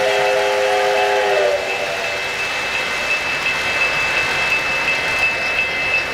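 A sound-equipped O-scale model train sounds a multi-note chime, a chord held steady until it cuts off about a second and a half in. The train then runs past on the three-rail track with a steady rolling rumble, over a thin high tone with faint regular ticks.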